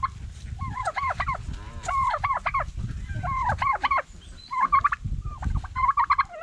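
Tom turkeys gobbling, about five gobbles in quick succession, each a fast rattling run of notes, over a low rumble.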